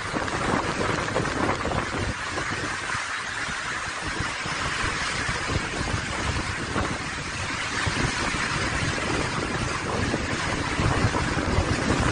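Tropical cyclone wind blowing hard in gusts and buffeting the microphone, over a steady hiss.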